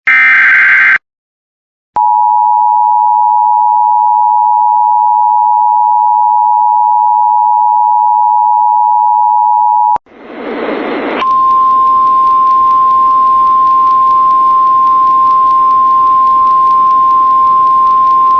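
Emergency Alert System signalling. First comes the last SAME header data burst, a shrill one-second digital screech. Then the two-tone attention signal holds steady for about eight seconds and stops abruptly. A rush of radio static follows, and about a second later a single steady weather-radio alert tone sounds over hiss.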